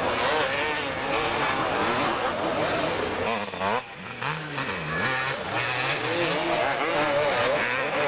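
Several 250cc two-stroke motocross motorcycles racing, their engines revving up and down as they are throttled through the turns. Around the middle the sound dips briefly, then one engine note falls and climbs again as a bike passes close.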